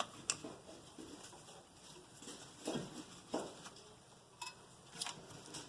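A handful of scattered light metallic clicks and knocks from a hand tool being worked against a front brake caliper to push the piston back in.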